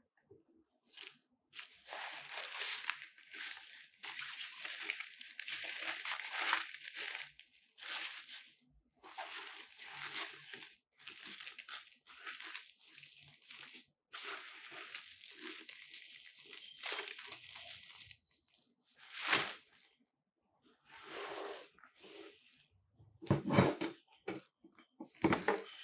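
Rustling and crinkling of a Godox octagon softbox's black fabric being handled with gloved hands, in long bursts. Near the end, a few sharp knocks as the metal rod frame is moved.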